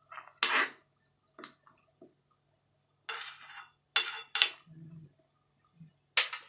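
Kitchen utensils knocking and clinking against cookware: a handful of sharp separate clinks, with a short scrape about three seconds in.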